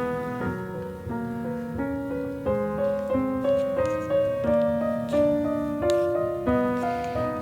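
Background music: a gentle piano melody, one note or chord about every half second.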